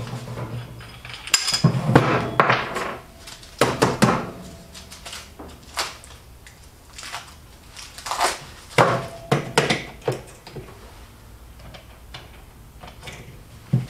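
Metal tools and parts being handled at a workbench: irregular clinks, knocks and rattles, loudest in a few clusters and quieter in between, with no power tool running.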